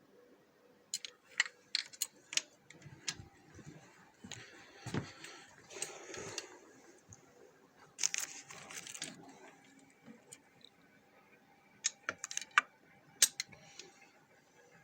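Metal hand tools clicking and clinking against each other and the engine while the cylinder head bolts of a ZMZ 514 diesel are being tightened, with a few brief scraping sounds in the middle.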